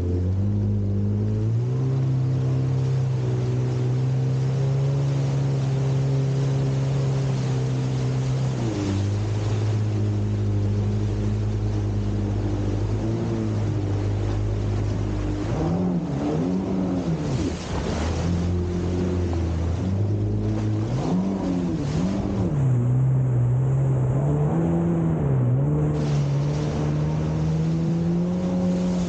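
Jet ski engine running at speed, with water rushing and wind noise. The engine note holds steady at first, drops once about a third of the way in, then rises and falls repeatedly through the second half.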